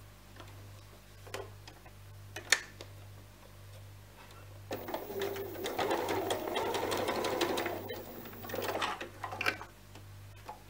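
Domestic electric sewing machine stitching a shoulder seam in stretch fabric: a fast, steady run of stitches for about four seconds, starting about halfway in. Before and after it there are a few light clicks and rustles as the fabric is positioned and handled.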